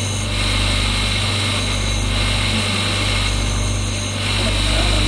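Electric motor of a stone-cutter's grinding wheel running steadily, a constant low hum with a whir from the spinning disc.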